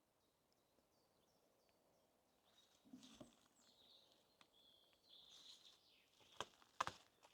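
Faint birdsong of short high chirps, with a few crunching footsteps on the forest path; two sharp steps near the end are the loudest sounds.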